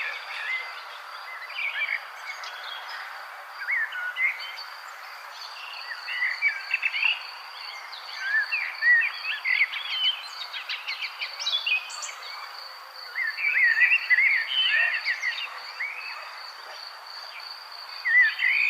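Several small birds chirping and twittering in bursts over an insect's steady, evenly pulsing high trill and a soft hiss of outdoor background.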